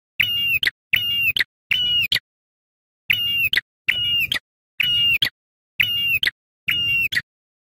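Ashy tailorbird (prenjak kepala merah) calling: eight loud, clear half-second whistled notes, each held on one pitch and ending in a quick upward flick, three in a row, a short pause, then five more.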